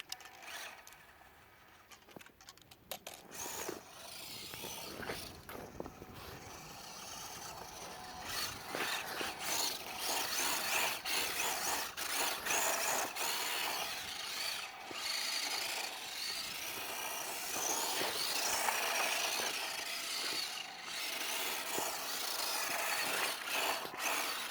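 A small electric motor whirring, rising and falling in level, with a few clicks in the first seconds.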